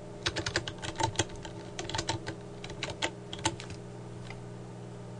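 Computer keyboard keys typed in a quick, uneven run of clicks that stops about three and a half seconds in, over a steady low electrical hum.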